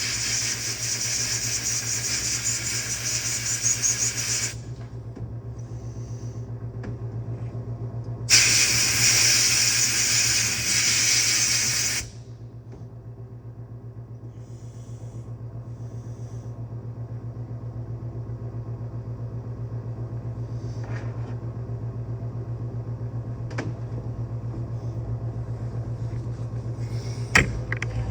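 Two long bursts of hissing pressurised spray, each about four seconds, over a steady low hum, with a few light clicks later on.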